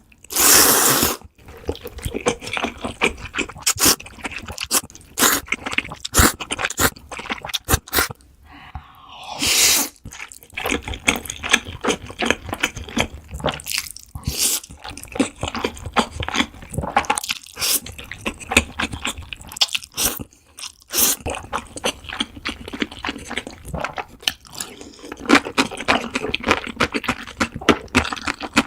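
Close-miked eating of jjajangmyeon (black bean noodles): a dense run of small wet smacks and chewing clicks, with two louder noisy bursts about a second in and near the ten-second mark.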